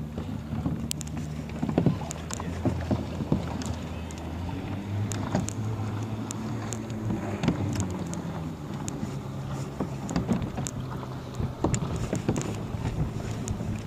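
Small waves lapping and slapping against plastic sit-on-top kayak hulls, with irregular sharp knocks of paddles and hulls bumping, over wind on the microphone. A low steady drone runs underneath, shifting in pitch now and then.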